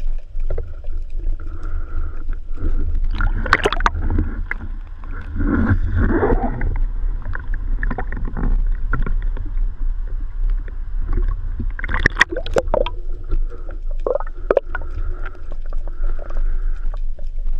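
Water sounds as heard by an action camera in its housing: a steady low rumble of moving water, with sharp clicks and knocks from handling the speargun and the fish, loudest about three and a half seconds in and again about twelve seconds in. About five to seven seconds in there is a stretch of louder sloshing.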